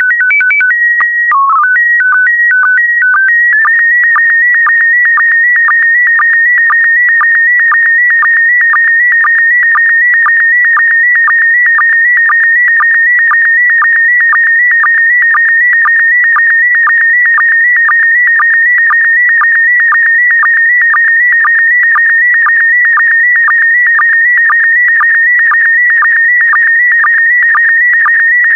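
Slow-scan TV signal in PD120 mode starting up: a few seconds of pitched header tones stepping between higher and lower notes, then the image data as a steady electronic tone near 2 kHz broken by short regular sync pulses about twice a second.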